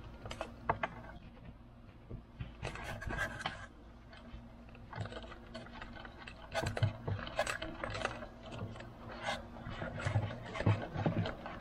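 Light handling noises: scattered clicks and short scrapes of fingers and a thin wire being pushed through a rubber grommet hole.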